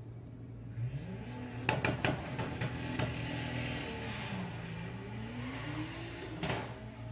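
Two drag-racing Volkswagens, a Golf and a current-shape Beetle, launching off the start line and accelerating hard down the strip. The engine note rises from about a second in and falls back briefly twice at the gear changes, with a few sharp cracks just after the launch.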